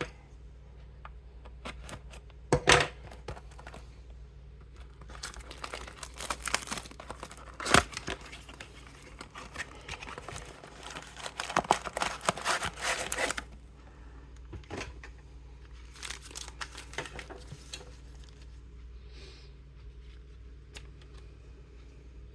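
Wrapping and foil card packs of a 2025 Heritage Baseball blaster box being torn open and crinkled, in crackly stretches, with two sharp snaps, one near the start and one about eight seconds in.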